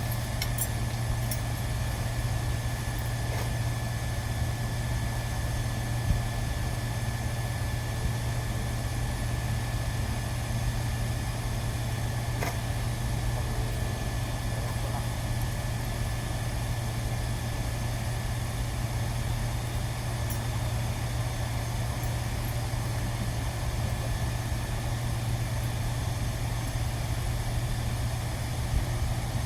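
Steady low machine hum with a thin high tone above it and a few faint clicks.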